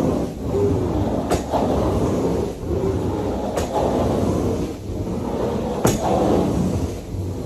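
Carpet-cleaning equipment worked back and forth over carpet in regular strokes, about one a second, with a sharp click about every other stroke.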